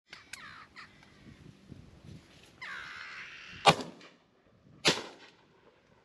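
Two shotgun shots about a second apart, the first louder. Before them, crows caw.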